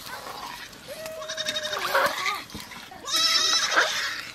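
Bleating livestock: two wavering calls, the first about a second in and the second, shorter one about three seconds in.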